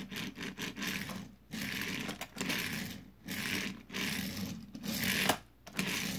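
A diecast NASCAR stock car pushed back and forth across a tabletop, its wheels rolling with a rough scraping rumble in about eight strokes. The car doesn't roll well because its chassis isn't pushed in all the way and rubs on the surface.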